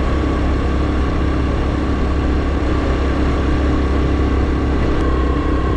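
Honda Super Cub 110's single-cylinder engine running steadily as the bike is ridden along, with a steady rush of road and wind noise.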